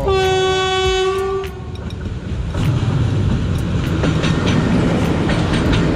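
Train horn sounding one long steady blast lasting about a second and a half. Then a freight train passes close by, its wheels rumbling and clattering over the rail joints.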